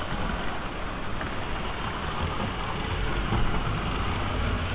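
H0-scale model steam train with tank wagons running on layout track: a steady rolling rumble of wheels and motor, with the low end growing a little stronger partway through.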